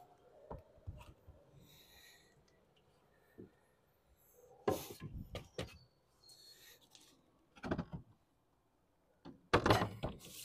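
Scattered knocks and thuds from a timber batten and a sheet of lead being handled and set against a plywood roof cheek, with the loudest group of knocks near the end as the lead is pressed into place.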